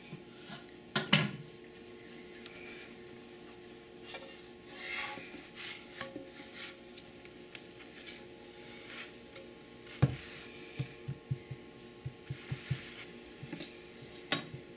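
A wooden lefse turning stick scraping and sliding across a nonstick electric griddle as a lefse is lifted and turned. There is a sharp knock of wood on the griddle about ten seconds in, followed by a quick run of light taps.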